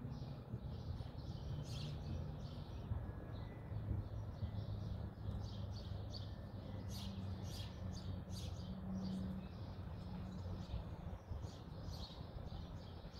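Small birds chirping repeatedly in quick, scattered bursts, over a low steady hum.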